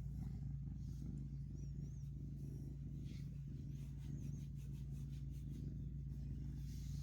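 Kitten making a steady, low rumbling noise.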